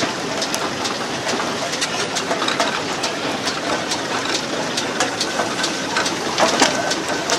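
Fowler steam roller running close by: a steady mechanical noise with many sharp, irregular ticks and clanks.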